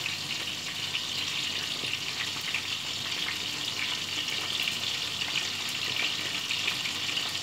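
Small pelmeni sizzling steadily in hot oil in a frying pan as they brown to form a crust, with a few light taps of forks as they are turned.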